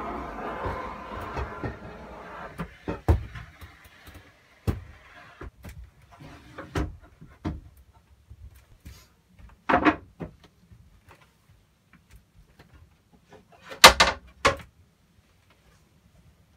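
Wooden bunk platforms and a hinged plywood bed lid being handled and stowed. A rustling scrape at the start gives way to scattered knocks and thumps of wood, with a loud cluster of knocks near the end.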